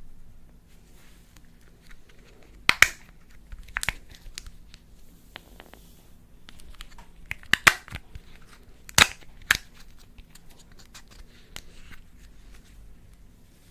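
Slime being worked by hand: soft crackling throughout, with several sharp pops, two close together near the middle and two more a little later.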